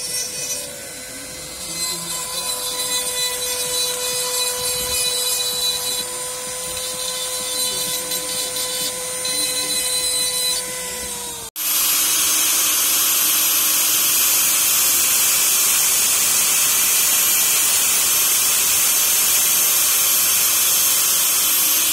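A small rotary tool running with a steady whine as its bit works on an RC car's chassis and suspension mount. About halfway through it cuts off abruptly, and an angle grinder's cutting disc takes over, cutting into the chassis plate with a loud, steady, hissing grind.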